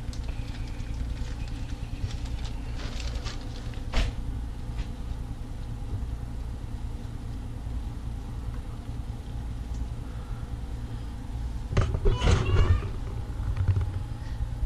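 Handling noises against a steady low hum: a single sharp click about four seconds in, and a short burst of rattling and clicking near the end.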